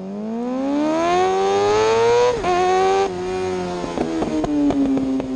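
Racing motorcycle engine accelerating hard off the start. The revs climb steadily for about two seconds, drop sharply at an upshift, hold, then fall away near the end.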